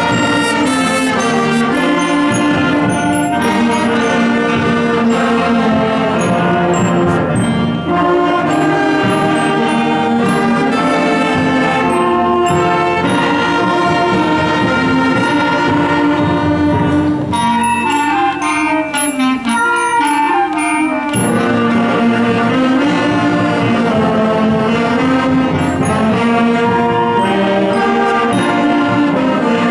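Wind band playing, brass to the fore, with several parts falling together in descending runs about two-thirds through.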